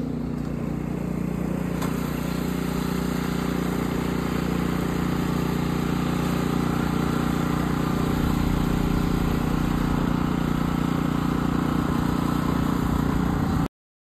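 Small gasoline snowblower engine running steadily as it clears snow from a driveway. It cuts off suddenly near the end.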